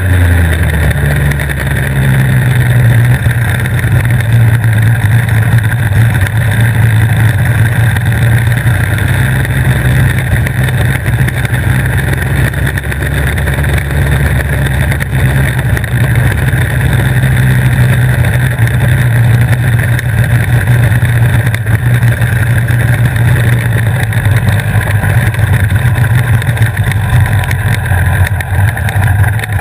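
Superkart's two-stroke engine running at steady low revs at pit-lane speed, its note holding almost level, with wind and spray noise over it.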